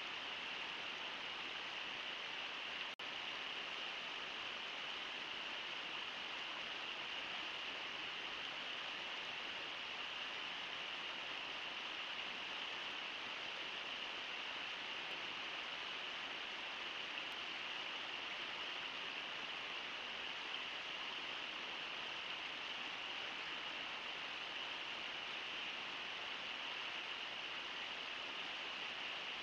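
Steady rush of the Brooks River running over rocks in the rapids, an even hiss with no change in level.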